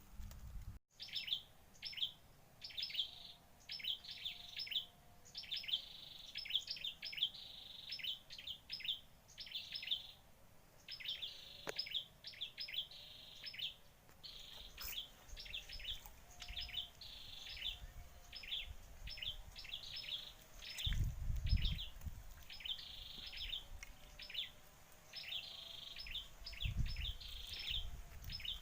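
Birds chirping, a steady run of short, high chirps several times a second. There are two brief low rumbles, one a little past two-thirds of the way in and one near the end.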